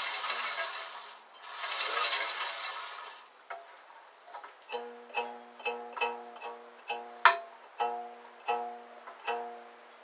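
The bandsaw's upper wheel is spun by hand, giving two rushing whirs over the first three seconds. From about halfway on, the bandsaw blade is plucked again and again, ringing a short note of the same pitch each time: a check of the blade tension after tightening.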